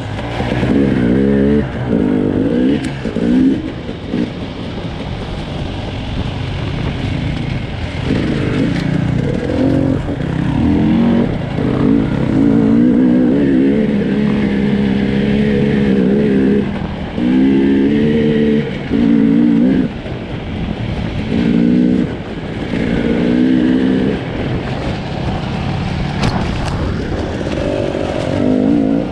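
Motorcycle engine being ridden hard, its revs rising and falling again and again with throttle surges and gear changes.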